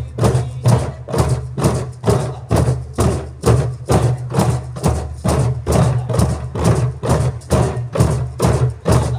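A group of djembes played by hand together, beating out a steady, even rhythm of deep bass strokes and sharper slaps.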